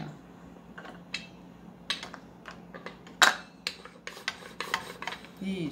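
Stainless steel rolling pin rolled back and forth over a slice of sandwich bread on a glass cutting board, with irregular light clicks and knocks of metal on glass, the loudest about three seconds in.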